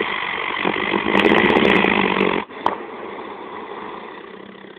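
Dog snoring loudly, one long rasping snore that stops abruptly about two and a half seconds in, followed by a single click.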